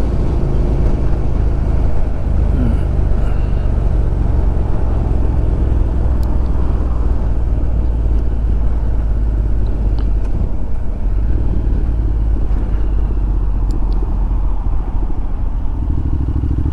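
Honda NC750X motorcycle riding at road speed: its parallel-twin engine drones steadily under a constant rush of road noise. Near the end a clearer, steadier engine note comes through.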